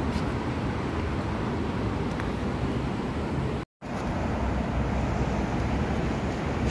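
Steady low rumble and hiss of outdoor city ambience, with a split-second gap of silence a little past halfway.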